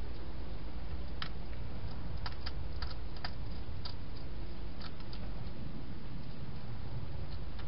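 A wild hedgehog eating inside a plastic feeding box: a scatter of irregular sharp clicks from about a second in until about five seconds in, over a steady low hum.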